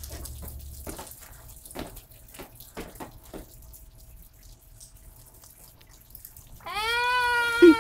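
Rainwater dripping and trickling on wet pavement, with scattered small taps and drips. Near the end a long, high, drawn-out voice-like cry rises slightly and then falls away; it is the loudest sound.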